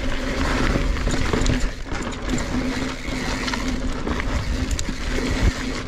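NS Bikes Synonym mountain bike descending rocky singletrack at speed: tyres rolling and rattling over rock and dirt under a steady rumble of wind. A faint buzz comes and goes throughout, like the rear hub ratcheting while coasting.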